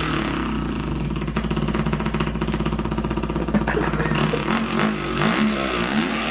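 A man imitating a two-stroke dirt bike engine with his mouth, as a continuous buzzing engine note. The pitch revs up and down at the start and again near the end, with a steadier, fast-pulsing stretch in between.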